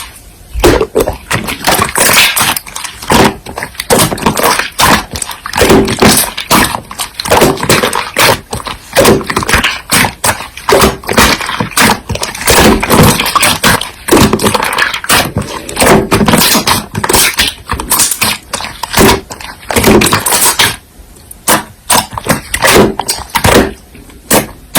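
Slime being squeezed and pressed by hand: a dense, irregular run of loud clicks, pops and crackles, with brief pauses.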